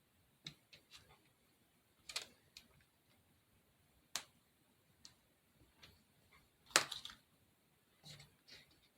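Light clicks and taps of small craft pieces being handled and set down, about six of them spread out, the loudest a little past the middle.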